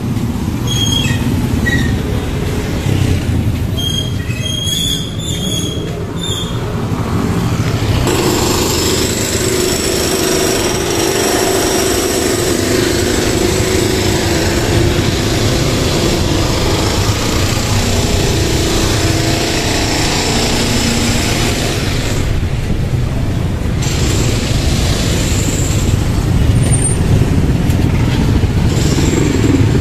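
Busy street traffic: motorcycle and motorcycle-sidecar tricycle engines running and passing close by, a steady low rumble that grows fuller and brighter from about eight seconds in. A few short high chirps sound in the first several seconds.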